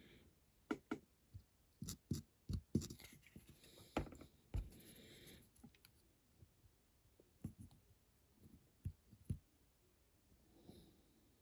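Scattered light clicks and taps of small tools and parts being handled on a workbench, with a soft scraping stretch a few seconds in.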